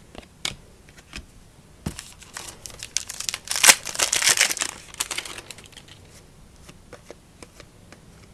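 A trading-card pack wrapper being torn open and crinkled, the crackling loudest in the middle. Light clicks and taps of cards being handled come before and after it.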